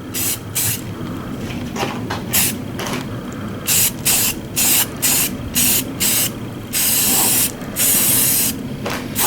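Primer sprayed from a spray can in a run of short hissing bursts, with two longer sprays near the end.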